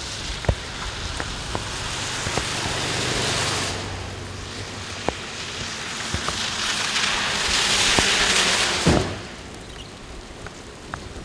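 Tyres of passing vehicles hissing on a rain-wet road, in two swells. The second pass, a pickup truck, is the louder and dies away quickly about nine seconds in. Scattered raindrops tick close by.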